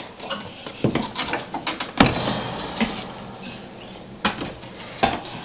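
Footsteps and knocks on wooden attic stairs: a run of irregular clunks, the loudest about two seconds in.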